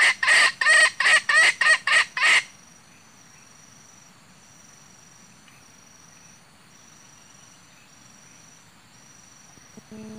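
Wild junglefowl clucking, played through a hunter's handheld caller as a lure: a loud, even run of clucks, about three a second, that cuts off about two and a half seconds in. After that only a faint, high insect trill comes and goes in stretches of about a second.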